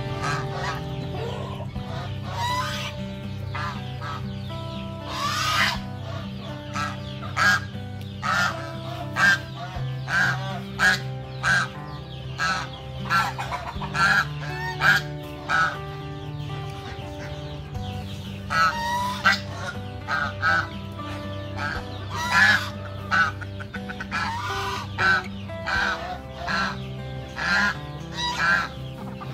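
Domestic geese and chickens calling: many short honks and clucks in quick irregular runs, over background music with steady held low notes.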